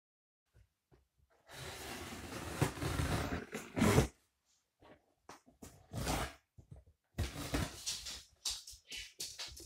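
Scissors blade drawn along the packing-tape seam of a cardboard box, a long scraping slit that stops about four seconds in. Then shorter scrapes and rustles of hands moving over the cardboard.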